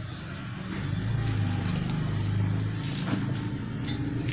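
A steady low mechanical hum, with a light knock about three seconds in.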